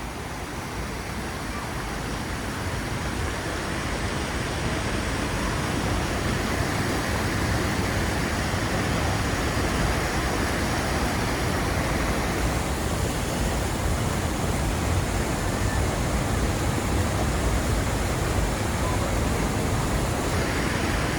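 Waterfall: a steady rush of falling water that grows louder over the first few seconds, then holds level.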